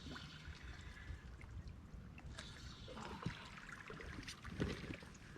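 Light water splashing and sloshing with scattered knocks and clicks as a small hooked flathead catfish is brought in at the water's edge, the louder splashes a few seconds in.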